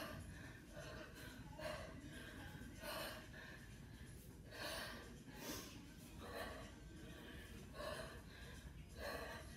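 A woman breathing hard during a set of 20 kg kettlebell cleans, a breath in or out about every second and a half.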